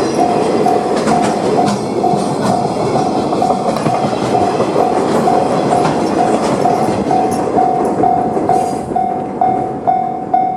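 Freight train's wagons clattering over the rail joints as they pass a level crossing, while the crossing's warning bell dings steadily about twice a second. Near the end the train noise thins and the bell stands out more clearly.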